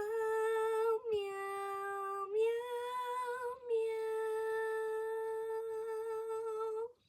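A woman's voice humming a slow tune in four long held notes. The last note is held about three seconds and cuts off sharply near the end.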